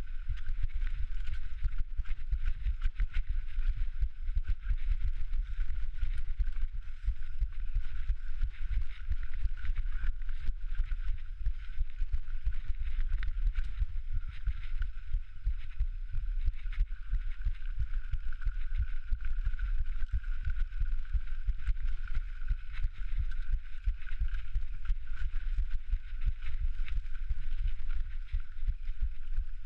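A mountain biker's heartbeat, recorded close to the body on a rough downhill ride: dense low thumps and rumble jolting rapidly, over a steady faint high-pitched whine.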